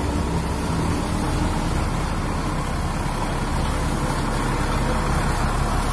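Diesel engine of a heavy water-tanker truck idling steadily.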